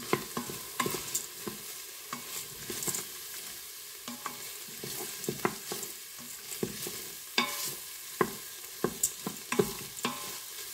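Rice with peas and diced ham toasting in hot oil in an electric pressure cooker's stainless steel inner pot on sauté: a steady sizzle, with irregular knocks and scrapes from a wooden spoon stirring against the pot. This is the toasting of the risotto rice before the wine goes in.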